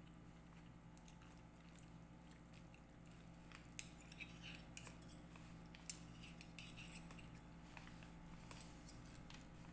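Metal chopsticks and a metal spoon clicking against a ceramic bowl as instant noodles are stirred and lifted: a run of light clicks starting about four seconds in, the sharpest a little past the middle, over a low steady hum.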